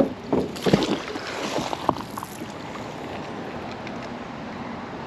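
A few short knocks and clanks in the first couple of seconds, then a steady rush of wind and moving water.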